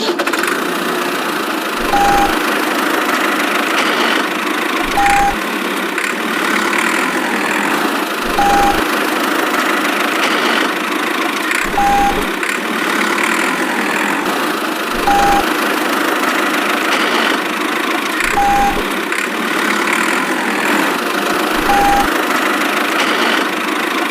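A steady engine-like running noise with a short high beep about every three seconds, seven in all, each beep landing with a brief low thump.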